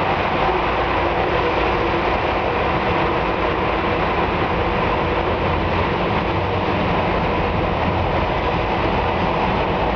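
Steady road and engine noise heard from inside a car's cabin as it drives through a road tunnel in traffic.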